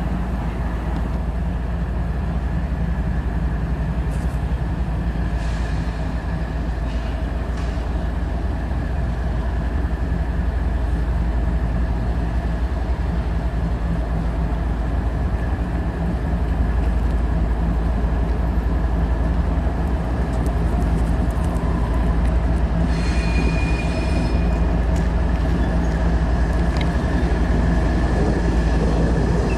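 CSX diesel-electric locomotive approaching at low speed, its engine a steady low rumble that slowly grows louder. A brief high-pitched squeal, typical of wheels on curved track, sounds about 23 seconds in.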